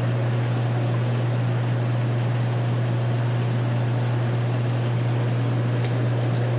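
Aquarium water circulation: a steady rush of flowing water with a constant low pump hum underneath, and a couple of faint clicks about six seconds in.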